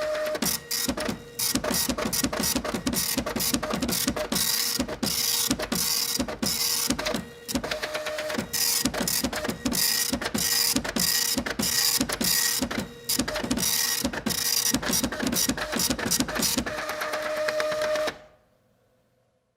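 Printer printing: a fast run of mechanical strokes and rattles over a steady motor whine, with short repeated downward swoops in pitch. It stops about 18 seconds in.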